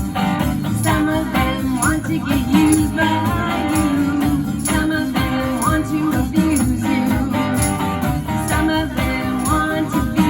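Band music with a steady beat, played without singing.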